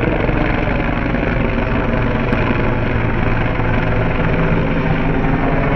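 Helicopter flying overhead: a loud, steady drone of rotor and engine.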